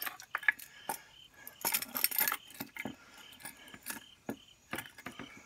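Sticks of fatwood and a knife being handled: sharp clicks and clacks of wood on wood, with a longer scraping burst about two seconds in. Crickets chirp steadily in the background.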